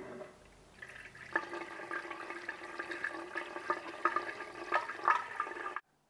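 Coolant pouring from a flexible spout into a car's radiator filler neck, gurgling steadily as it fills, then cutting off suddenly near the end.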